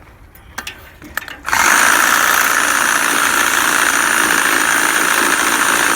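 A few light clicks and knocks, then about a second and a half in a battery-powered reciprocating saw (Sawzall) starts up and runs steadily. It makes a loud, harsh noise with a thin high whine on top, the sound likened to nails on a chalkboard.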